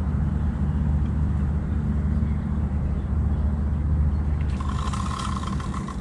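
A steady low motor drone runs throughout. From about four and a half seconds in, a fast buzzing ratchet joins it: a carp reel's drag giving line to a hooked carp pulling against the bent rod.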